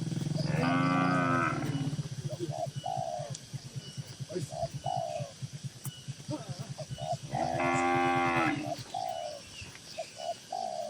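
Cattle mooing in a barn: two long, loud moos, one about half a second in and another around seven and a half seconds, over a low pulsing moo that stops near nine seconds. Short, repeated higher calls sound in the background.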